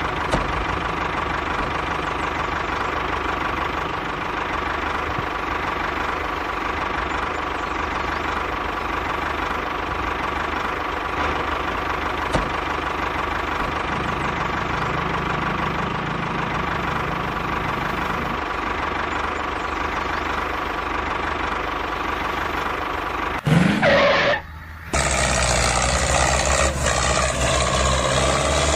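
Tractor engine running steadily. About three quarters of the way through, a brief rising whine and a short dip lead into a louder, deeper engine sound that runs on to the end.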